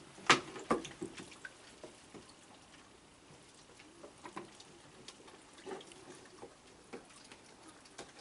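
Raccoons dabbling in tubs of water: small splashes and drips, with two sharp knocks in the first second.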